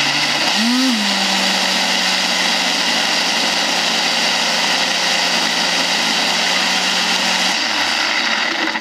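Ninja single-serve blender running: the motor spins up in the first second, holds a steady pitch, then switches off about seven and a half seconds in and winds down. It is blending a thick mix of frozen fruit with little almond milk for a smoothie bowl.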